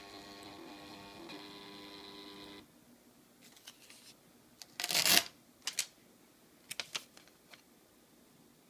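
Receipt printer of a WiFi vending kiosk running with a steady mechanical whine as it prints and feeds out a voucher slip, stopping about two and a half seconds in. About five seconds in, the paper slip is torn off with a short, loud rip, followed by a few light paper rustles and clicks.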